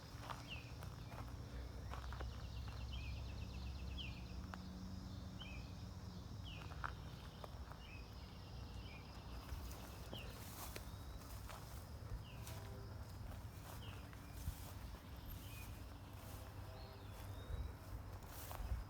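Outdoor ambience: footsteps, short high chirping calls repeating about once a second, and a steady low rumble.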